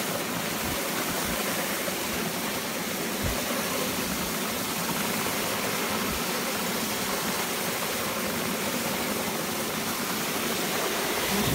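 Steady hiss of a dog sled's runners gliding over packed snow as the husky team pulls it along, with a few soft low bumps.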